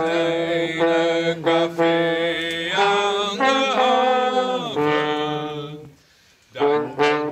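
A man singing or chanting in long held notes, accompanied by a trombone, with a short pause about six seconds in before they start again.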